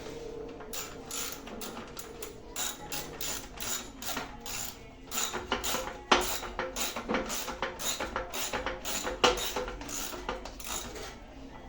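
Ratchet wrench clicking in quick, uneven strokes while tightening a nut, with two louder clicks partway through.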